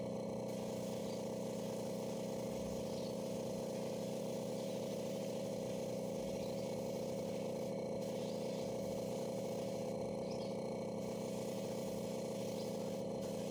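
Air compressor running with a steady hum, feeding a gravity-feed spray gun whose faint hiss drops out briefly a few times.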